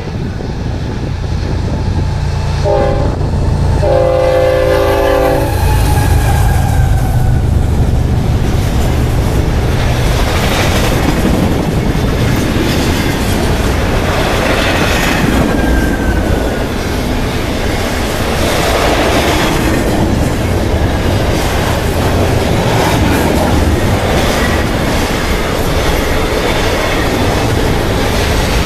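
A Union Pacific freight locomotive's air horn sounds a short blast and then a longer one as the train approaches. The locomotive then rumbles past, and a double-stack container train follows with steady wheel rumble and clatter on the rails.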